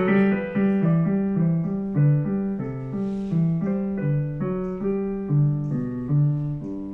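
Digital piano playing a berceuse: a melody over a steady, repeating rocking figure in the bass, the notes growing gradually softer toward the end.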